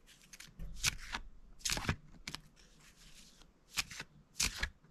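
A small deck of 26 oracle cards being shuffled by hand, the cards sliding and tapping against each other in a string of short, unevenly spaced strokes.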